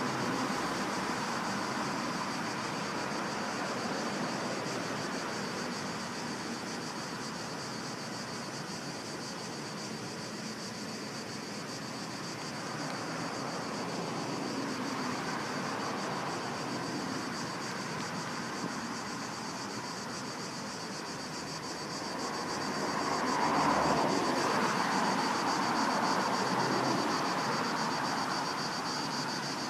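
Cicadas shrilling steadily under a constant hiss of outdoor noise. A broad rushing sound swells about 23 seconds in and fades a few seconds later.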